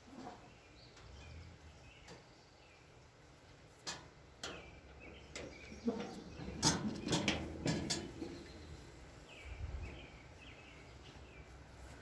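Metal wheelbarrow with a metal pail in its tray rattling and clanking as it is pushed over grass, a few knocks at first, loudest for a couple of seconds past the middle as it passes close. Faint bird chirps behind it.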